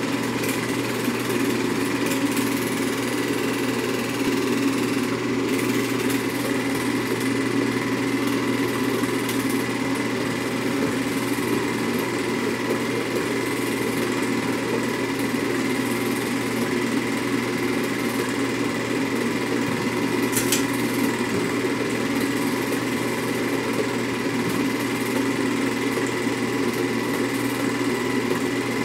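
Home-movie film projector running with a steady mechanical whir that does not change.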